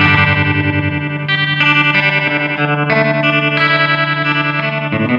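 Electric guitar played through a 1975 Fender Twin Reverb master-volume amp: sustained chords that change every second or so, with a quick, even pulse in volume. This is a sound test of the amp after servicing.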